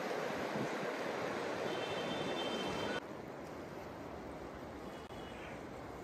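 The Ganges flowing and lapping along a pebbly bank: a steady rush of water that drops suddenly in level about halfway through.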